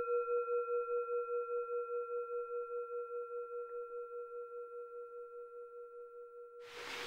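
A long, bell-like metallic tone rings out, wavering as it slowly fades. Near the end a sudden steady hiss, like rain, cuts in.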